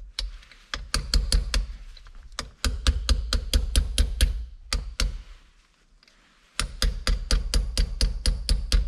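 Small hammer tapping a pin punch in quick, light strikes, about four to five a second, driving the retaining pin out of a Subaru WRX STI's stock shifter. The tapping stops for about a second and a half a little past the middle, then picks up again.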